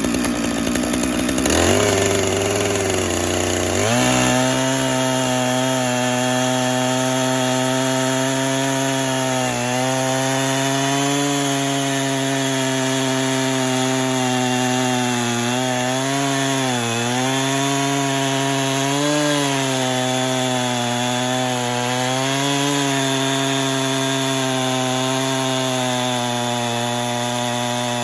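Portable band sawmill's gas engine revving up, then running steadily at full throttle as the blade cuts through a white oak log. Its pitch dips briefly a few times under the load of the cut.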